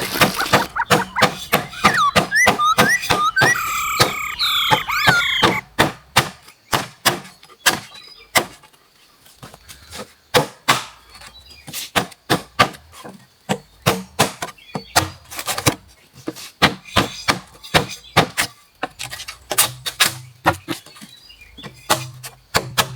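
Irregular sharp knocks of a tool striking wood or bamboo, like chopping or hacking, some coming in quick runs. Birds chirp through roughly the first five seconds.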